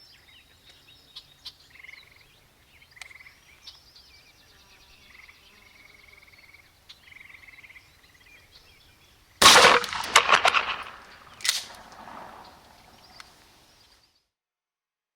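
Birds chirping, then about nine seconds in a single loud 12-gauge shotgun blast firing a 2¾-inch #6 birdshot load. It is followed by a run of sharp cracks and a fading tail, with another sharp crack about two seconds after the shot.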